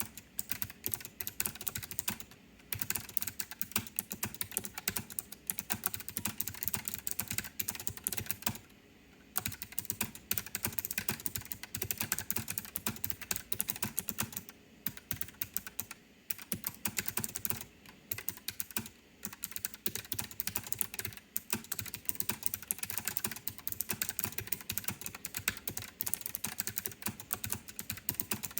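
Continuous typing on a Keychron K1 mechanical keyboard with clicky blue Gateron switches: a fast, dense patter of key clicks, broken by a few short pauses, the longest about nine seconds in.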